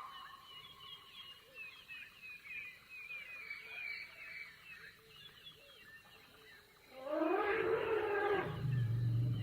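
Faint, rapid high chirping of wildlife, then from about seven seconds a much louder, drawn-out animal call over a low steady hum.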